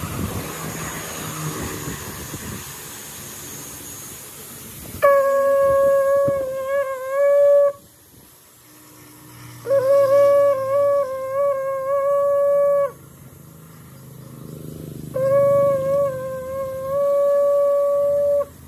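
Conch shell (shankh) blown in three long blasts of about three seconds each, starting about five seconds in. Each is a steady, horn-like tone that wavers as it begins. Before the blasts there is a low, noisy rumble.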